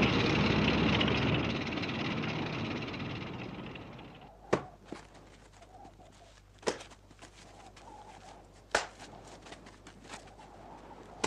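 An engine's rumble fading out over the first four seconds, followed by a few sharp knocks about two seconds apart in near quiet.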